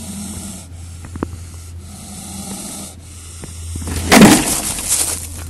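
Spectacled cobra hissing, with a loud, forceful hiss about four seconds in as it lunges, after quieter breathy hissing.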